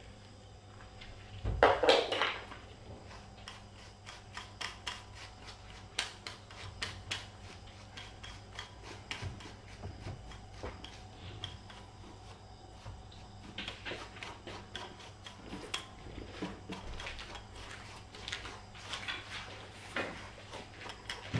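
A grooming brush or comb drawn repeatedly through a cat's fur: short scraping strokes with small sharp clicks, irregularly spaced, after a louder rustle about two seconds in.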